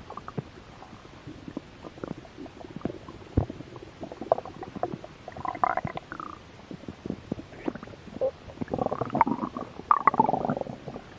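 A hungry human stomach growling: a string of short pops and squelches, with a gurgle about halfway through and a longer gurgling rumble near the end.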